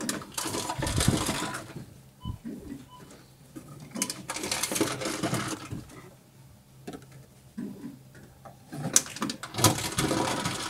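Reverse vending machine taking plastic PET deposit bottles: three loud bursts of crushing, each a second or two long, as the machine crushes each bottle, over a steady low machine hum.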